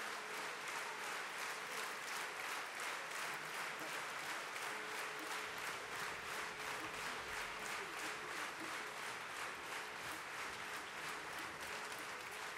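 Audience applause: many hands clapping at a steady level.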